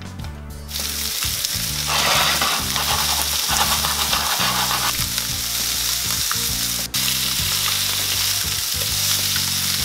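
Chicken wings sizzling skin-side down in a nonstick frying pan over high heat as the fat renders out of the skin. The sizzle starts just under a second in, holds steady and cuts out briefly about seven seconds in.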